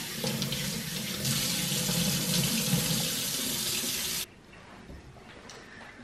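Kitchen tap water running onto a foam vacuum filter being rinsed by hand over a stainless steel sink. The water sound cuts off suddenly about four seconds in.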